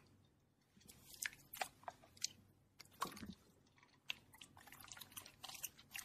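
Clear glitter slime being pressed flat and poked by fingertips: irregular wet crackles and small pops, with a sharp click at the very start.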